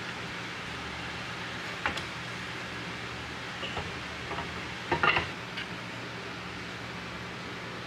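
A steady low hum with a few light clicks and clinks; the loudest cluster of clicks comes about five seconds in.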